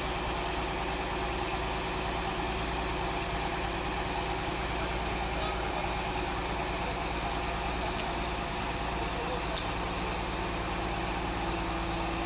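A vehicle engine running steadily, with a constant high whine and a couple of sharp clicks about 8 and 9.5 seconds in.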